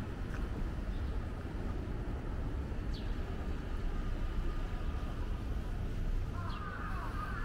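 Outdoor city ambience: a steady low rumble with a few faint, short high chirps, and voices coming in near the end.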